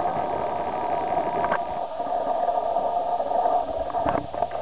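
Steady machine drone with a thin tone riding on it, broken by two faint clicks, one about a second and a half in and one near the end.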